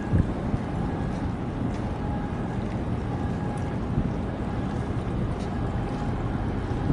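Steady wind rumbling on the microphone, with a faint steady hum underneath.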